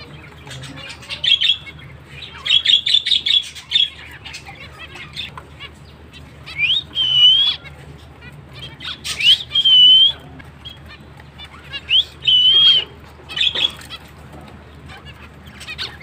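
Zebra finches chattering in quick clicky bursts, with three clear whistled notes a few seconds apart, each sweeping up and then wavering.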